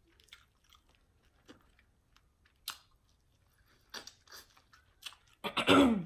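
Person eating: soft, wet chewing and lip smacks at irregular intervals. Near the end comes a short, falling voiced hum, the loudest sound.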